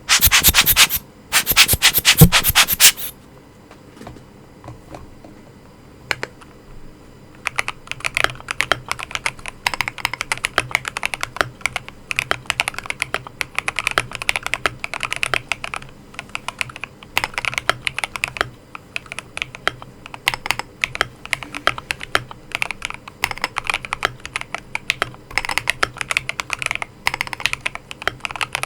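Typing on an Akko Mod005 mechanical keyboard with Akko CS Jelly White linear switches: rapid key clicks in quick runs, starting about seven seconds in. Two loud bursts of noise come first, in the first three seconds.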